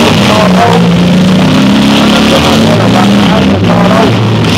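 Several demolition derby car engines running and revving at once, loud and unbroken, their pitches rising and falling against each other.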